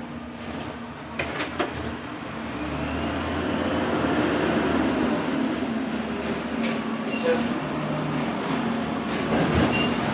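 Rear-load garbage truck hopper working: a steady engine and hydraulic drone that swells about two seconds in, under the crunch and shift of trash, with a few sharp clicks early and brief squeaks later as more trash tumbles in.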